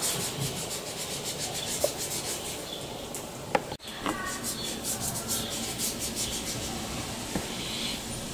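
Felt-tip marker scratching on a paper colouring-book page in quick, repeated back-and-forth strokes, with a few light knocks.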